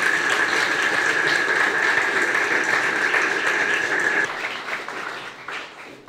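Audience applauding steadily, then dying away over the last second or two. A steady high-pitched tone runs under the clapping and stops about two-thirds of the way through.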